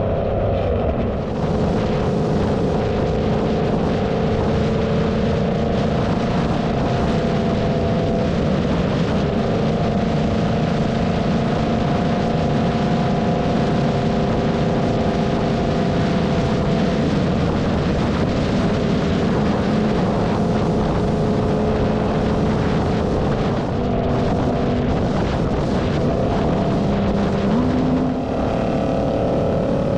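Cammed LS3 V8 of a Holden Commodore droning steadily at highway cruise, the exhaust note holding nearly constant and stepping up slightly near the end, with wind rushing over the microphone.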